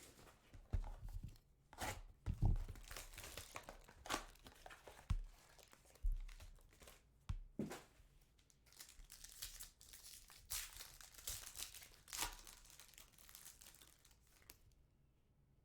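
Packaging of a trading card box being torn open and crinkled by hand: irregular tearing, rustling and crackling, stopping shortly before the end.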